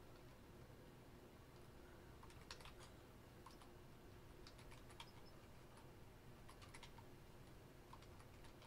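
Faint typing on a computer keyboard: scattered single keystroke clicks over a low steady background.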